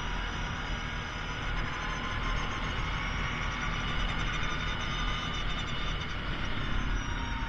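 Kawasaki Prairie ATV engine running steadily while under way, its pitch drifting gently up and down.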